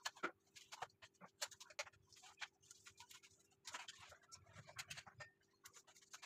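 Knife prying and scraping coconut flesh out of pieces of broken coconut shell: faint, irregular clicks and short scrapes of the blade against the hard shell.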